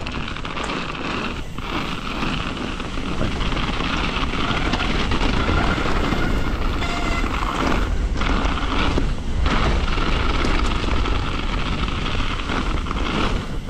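Wind rushing over the action camera's microphone as a mountain bike rolls down a dirt trail over wet leaves, with a steady low rumble from the tyres and frame. It grows louder a few seconds in.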